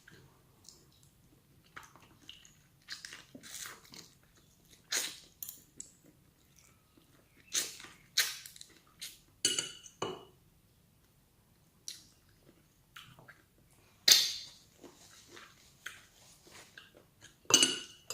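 Close-up mukbang eating sounds: irregular chewing, biting and crunching of food, with a few sharper clicks, the loudest about two-thirds of the way in and near the end.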